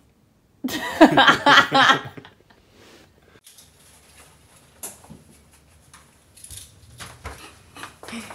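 A person's voice, loud for about a second and a half near the start, then faint clicks and rustling.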